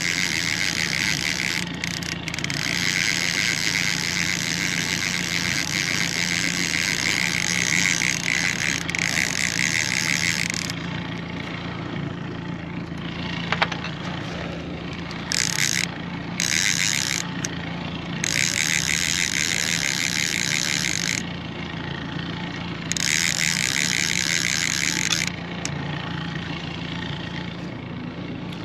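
Fishing reel being cranked to retrieve a lure: a fast ticking whirr that runs for about ten seconds, then starts and stops in several shorter spurts, over a steady low hum.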